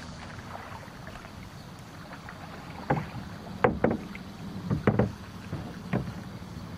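A few sharp knocks and clunks in a canoe, about five over a couple of seconds, over a steady low hum.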